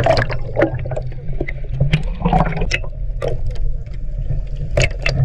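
Water sloshing and gurgling around a camera held half under the sea surface, with irregular splashes and clicks over a steady low rumble.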